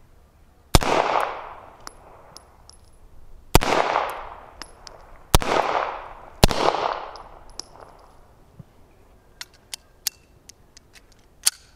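Four pistol shots from a Mauser C96 "Red 9" in 9x19 mm, each followed by a long echo; the first comes under a second in, the others about three, two and one second apart. Then a few light metallic clicks as the pistol is handled.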